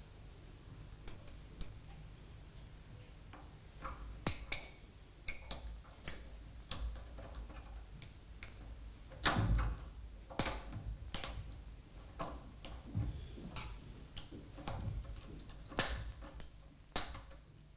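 Light metallic clicks and taps of steel rings and parts being fitted onto the pull lock of a Walterscheid free-wheel coupling held in a vise. The clicks come irregularly, a dozen or more, the loudest about nine seconds in.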